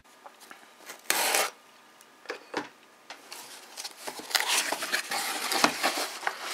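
Cardboard shipping box being handled and opened: a short scrape about a second in, then rubbing and scraping of cardboard flaps and paper with small clicks.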